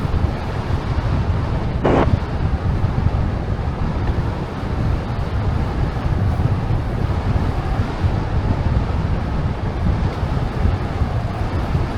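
Wind buffeting the microphone of a camera riding along on a moving bicycle, a steady low rumble. A brief, short higher sound cuts in about two seconds in.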